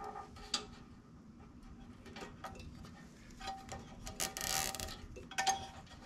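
Faint small clicks and plastic rattles of a zip tie and spark plug wire being handled, with a short ratcheting rasp about four seconds in as the zip tie is drawn through its catch.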